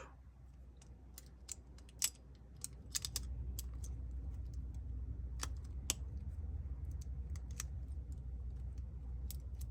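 Scattered small clicks and taps of tweezers and small parts on a phone's insides as the OnePlus 6T's front camera is connected to the board. A low steady hum comes in about three seconds in.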